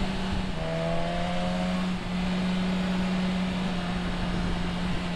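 Motorcycle engine running steadily on the move, its note dipping slightly about half a second in and rising again around two seconds in, under a steady rush of noise.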